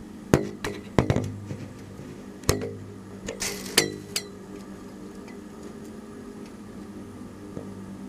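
A handful of sharp clinks and knocks, with a short rattling burst about three and a half seconds in, over a steady low hum. After about four seconds only the hum remains.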